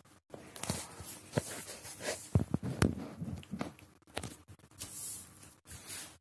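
A sheet of notebook paper rustling and crackling as it is handled and slid about on a table, in a run of irregular crinkles and taps.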